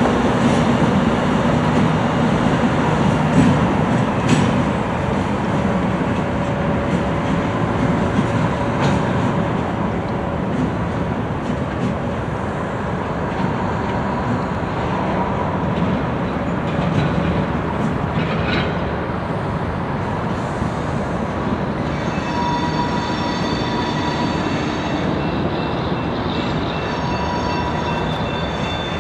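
KLW NZE15B genset diesel locomotive pulling freight cars slowly through a rail yard: a steady engine and rolling rumble, with scattered clicks and knocks from the wheels over rail joints and switches. From about three-quarters of the way in, a high-pitched wheel squeal comes and goes, typical of flanges on curved track.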